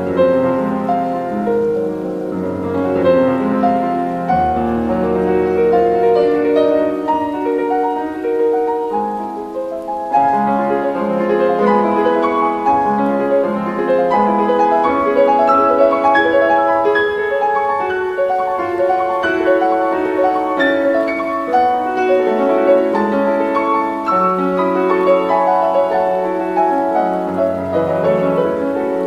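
Piano music: a classical-style piece with many overlapping sustained notes.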